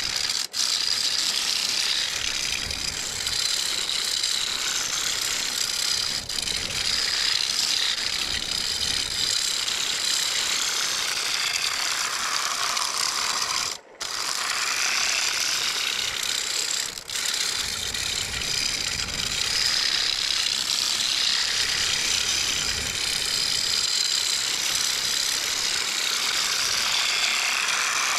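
Scraper cutting across the outside of a large blue pine bowl spinning on a wood lathe at 500 RPM: a steady scraping hiss with a few brief breaks.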